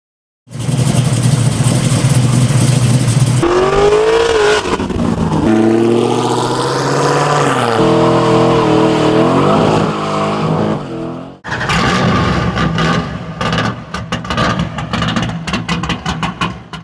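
V8 engines revving hard in a quick run of clips, one of them a pickup truck doing a burnout. The sound changes abruptly twice, with the engine pitch climbing and falling in the middle. A rapid series of sharp cracks comes in the last few seconds.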